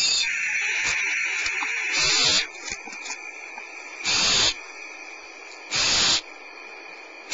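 Barn owls hissing in the nest cavity. A steady hiss runs for the first two seconds, then loud half-second hisses repeat about every one and a half to two seconds.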